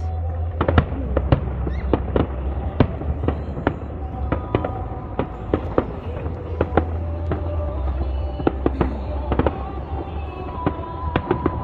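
Aerial fireworks bursting: an irregular run of sharp bangs and crackles, about two or three a second, over a steady low hum.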